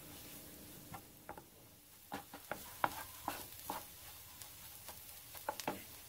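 Wooden spoon scraping and knocking in a nonstick skillet as diced onion, poblano pepper and mushrooms are stirred with butter and flour over a faint sizzle: the flour being cooked out for a roux. The strokes come in clusters, busiest from about two to four seconds in and again near the end.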